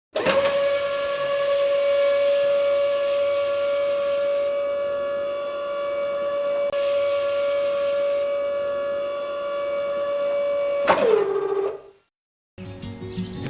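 A small electric motor whining at one steady pitch for about eleven seconds, then winding down with a falling pitch and stopping.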